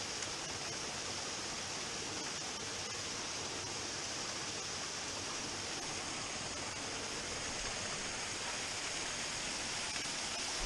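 Small waterfall splashing steadily into a shallow rocky pool: a continuous, even rush of falling water with a bright hiss.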